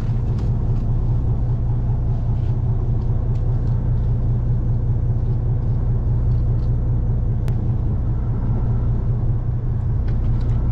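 Fishing boat's engine running steadily: a constant low drone.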